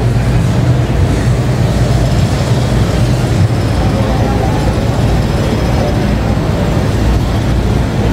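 Busy city street ambience: a steady low rumble of vehicle engines and traffic, with voices of passers-by mixed in.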